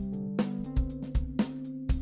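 Background music with a steady drum beat under held bass tones.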